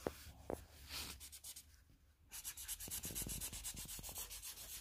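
Felt-tip markers being scribbled back and forth on a colouring-book page. A few light strokes come early, then a quick run of scratchy rubbing strokes starts a little before halfway and keeps going.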